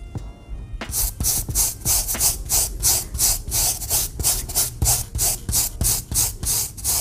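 Brush scrubbing a sneaker with shoe-cleaning solution: quick back-and-forth strokes, about four a second, starting about a second in.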